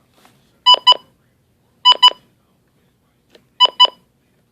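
Electronic double beeps, two short, loud tones in quick succession, repeating three times about every second and a half, between repetitions of a synthesized weather-radio warning message.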